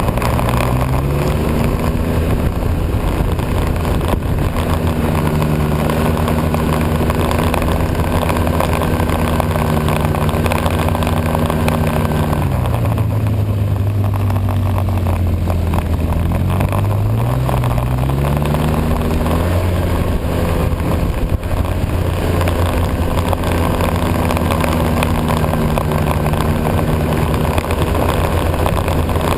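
A vehicle engine running steadily under way. About twelve seconds in its pitch falls as it slows, then it rises again as it speeds back up and settles.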